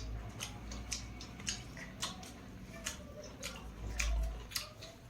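Close-miked eating sounds: irregular wet mouth clicks and smacks of chewing, about two a second, over a low rumble that swells briefly at the start and again about four seconds in.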